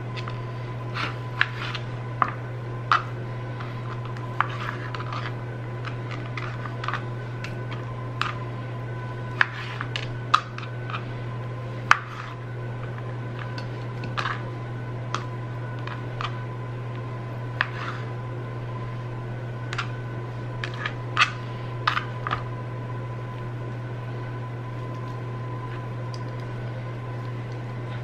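Kitchen knife cutting raw pork tenderloin into chunks on a flexible plastic cutting board: irregular clicks and taps of the blade striking the board, which stop a few seconds before the end. A steady low hum runs underneath.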